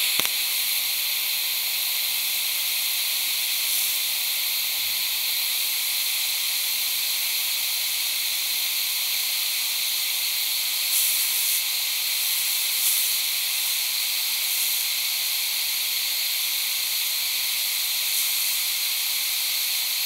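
TIG welding arc hissing steadily, a high, even hiss with a few brief brighter moments.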